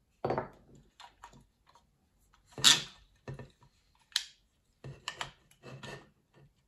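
Hands working a new plastic clutch quadrant onto a Ford Escort Mk3 steel clutch pedal, giving a scatter of short clicks, knocks and rattles. The sharpest knock comes about two and a half seconds in, and a cluster of knocks comes near the end.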